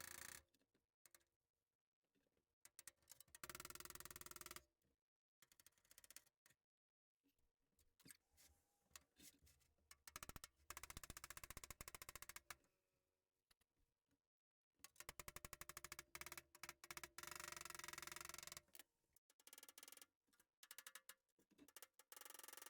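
Welding arc crackling in several bursts of a few seconds each, with short pauses between them, as hinge brackets are welded onto the truck body.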